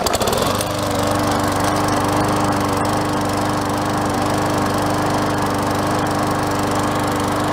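Small gas engine of an MTD Yard Machines self-propelled walk-behind lawn mower, starting on its automatic choke. It catches right at the start and within about half a second settles into a steady run.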